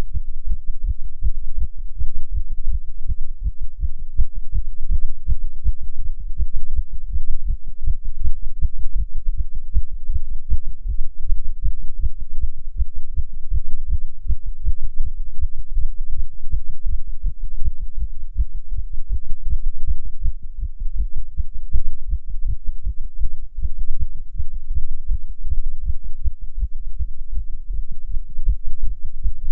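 Human heartbeat beating fast in a steady run of dull low thumps, the heart rate raised by nicotine from smoking a cigarette.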